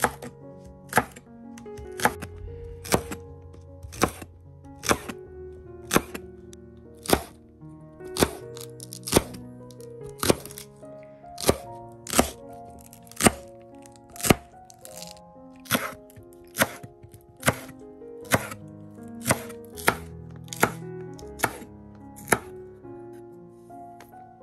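Kitchen knife chopping green onions on a wooden cutting board, one sharp stroke about every second, over background music.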